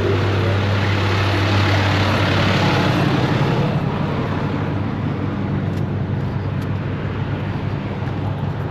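A large engine running steadily under a dense rushing hiss; the hiss thins out about three and a half seconds in while the engine carries on.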